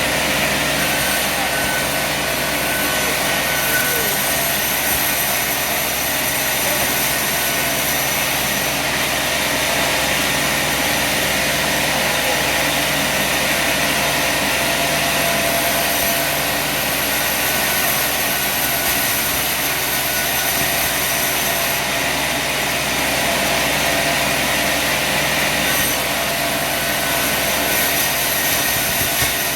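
Sawmill engine running steadily at a constant speed, making an even, unbroken mechanical noise.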